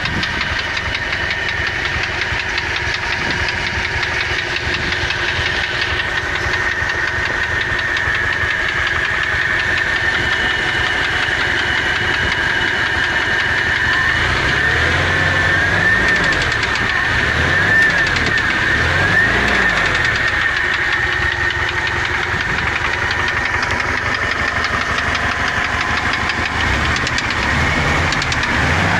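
ZMZ-406 2.3-litre four-cylinder 16-valve petrol engine idling with a knock, blipped several times from about halfway through and again near the end. The knock comes at idle and on lifting off the throttle and goes away under load; new hydraulic lifters and fresh oil quietened it only briefly.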